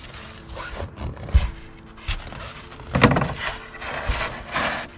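Snow shovel scraping and crunching through snow on a wooden deck in several uneven strokes, the loudest about three seconds in.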